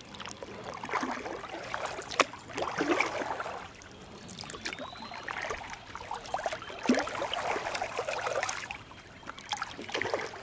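Kayak paddle strokes: water swishing, splashing and dripping off the blade in two long bouts, with a few sharp knocks, the loudest about two seconds in.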